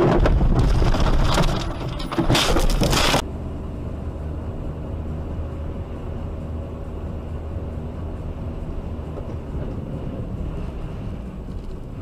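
Loud, rough rushing and scraping of a car ploughing off the road through deep snow, cut off abruptly about three seconds in. After that comes steady engine and tyre rumble heard from inside a car driving on a snowy highway.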